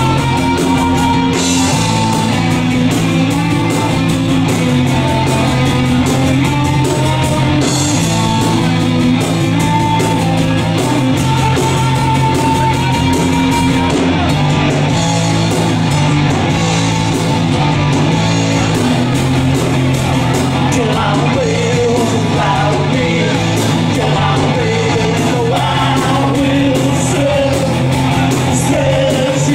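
A live rock band playing at a steady, full volume: two electric guitars, bass guitar and drum kit.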